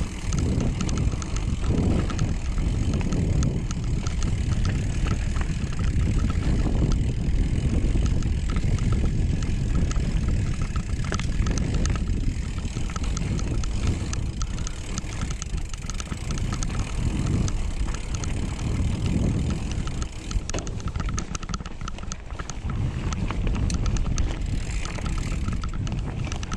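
Mountain bike riding down a dirt trail: wind rumbling on the microphone over tyre noise, with frequent rattling clicks from the bike over bumps.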